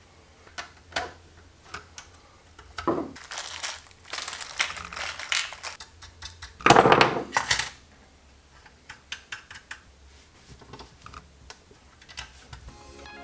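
Small screws, nuts and hand tools clicking and rattling against the metal chassis of a car stereo head unit as mounting brackets are bolted on, in scattered light clicks with a denser, louder rattle about seven seconds in.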